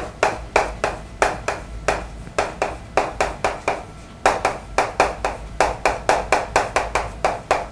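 Chalk writing on a chalkboard: a quick run of sharp taps as each stroke is put down, about four or five a second, with a brief pause about halfway.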